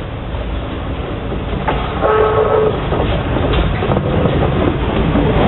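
Container freight wagons rolling past on the rails: a steady low rumble with wheel clatter that grows louder about two seconds in, when a brief steady tone sounds for under a second.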